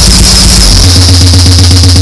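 Harsh, heavily distorted noise music: a loud buzzing low drone with rapid even pulsing, engine-like, that steps abruptly to a different pitch about three-quarters of a second in.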